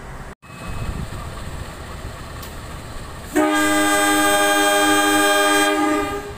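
A low rumble, then the air horn of KAI CC 201 diesel-electric locomotive CC 201 83 22 sounds one long blast of several tones together, starting suddenly about three and a half seconds in and lasting about two and a half seconds. This is the Semboyan 35 horn signal.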